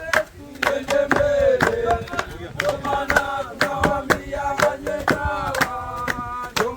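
Several voices chanting a song together, over sharp rhythmic knocks about two to three times a second.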